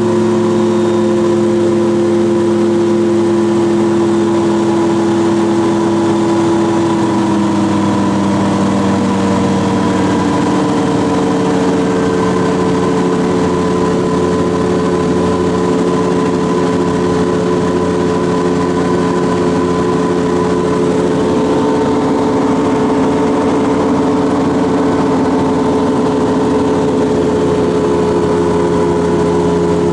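Xenon gyroplane's engine and pusher propeller running steadily on a landing approach, heard from inside the cabin. Its pitch drops a little about seven seconds in as power is brought back, then holds steady.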